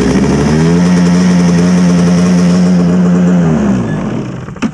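Kawasaki JS300 stand-up jet ski's single-cylinder two-stroke engine, just fired up out of the water, running at an idle that is a little high. About four seconds in it winds down and stops.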